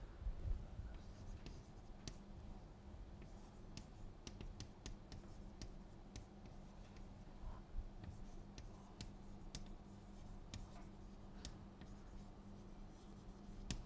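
Chalk writing on a blackboard: a string of faint taps and short scratches as the chalk strikes and drags across the board.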